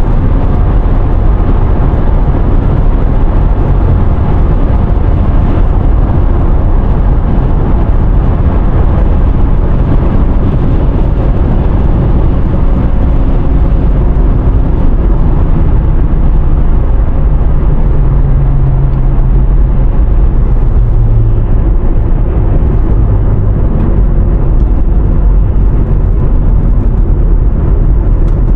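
Car driving at highway speed: steady tyre and road noise with a low engine hum that shifts slightly in pitch around the middle.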